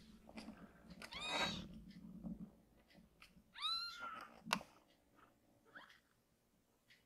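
Baby kitten mewing twice, two thin high-pitched mews about a second and three and a half seconds in, with a few soft clicks and one sharp tap just after the second mew.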